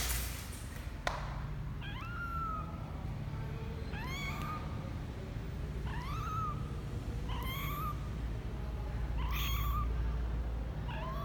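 Twelve-day-old kitten mewing: about six short, high calls, each rising in pitch, one every second and a half to two seconds. A sharp click at the start and another about a second in.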